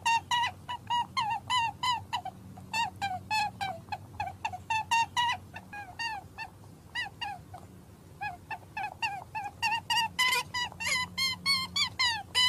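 A rapid series of short, high-pitched animal calls, about three or four a second, thinning out midway and coming back louder near the end.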